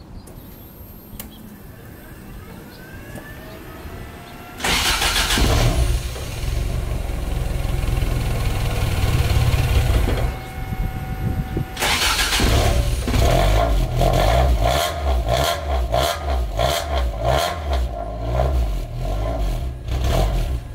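Toyota car engine cranked and started about a third of the way in, then running loudly. It dips briefly around the middle, then surges again and again as the throttle is blipped.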